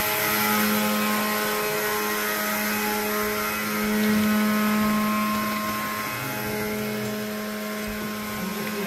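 Electric mixer grinder's motor running with a steady, even-pitched hum, growing slowly fainter.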